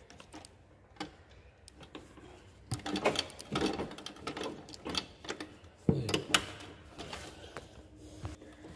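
Flatbed sewing machine with a roller presser foot stitching a leather sandal upper: scattered clicks at first, then short runs of rapid ticking from about three seconds in.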